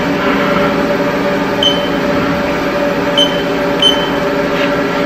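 Haas Toolroom Mill spindle running steadily at 1100 RPM with an edge finder chucked in, a constant machine hum. A few short high beeps from the CNC control panel as keys are pressed.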